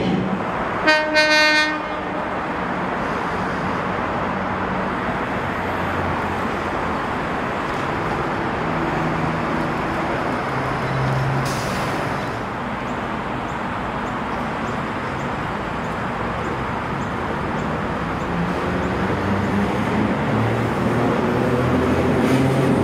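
Vintage Sydney electric train (heritage set F1) giving one short horn toot about a second in, then a steady rumble of wheels and motors as it runs along the platform.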